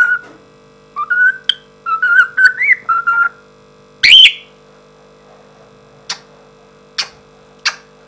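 African grey parrot whistling: a run of short notes at about the same pitch with small slides, then one loud, shrill whistle about four seconds in. A few sharp clicks follow.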